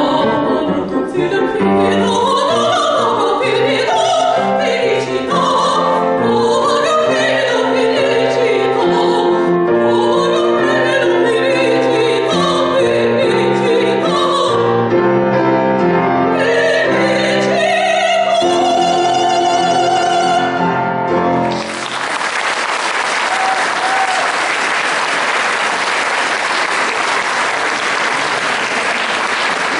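Soprano singing an opera aria with piano accompaniment, the voice gliding through the melody and ending on a long held high note. The music cuts off suddenly about 21 seconds in, and audience applause follows.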